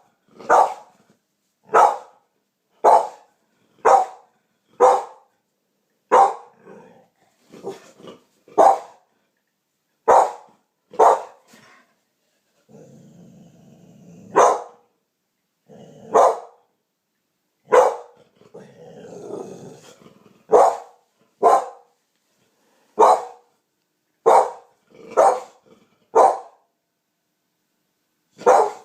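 Pit bull barking in single sharp barks about a second apart, with a stretch of low growling in the middle: alert barking at a strange noise she has heard.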